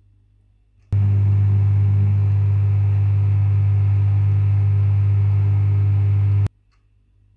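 Microwave oven running, its heating transformer and magnetron giving a loud, deep, steady hum. The hum switches on about a second in and cuts off suddenly near the end, leaving only the oven's faint running hum.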